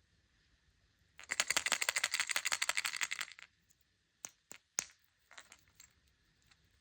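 Kinder egg packaging being handled: a fast run of crackling clicks lasting about two seconds, then a few separate clicks.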